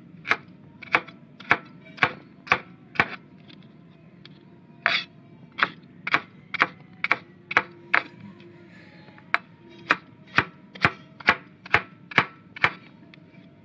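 Large steel knife chopping raw green mango into small cubes on a cutting board: sharp chops about two a second, in three runs with brief pauses between them.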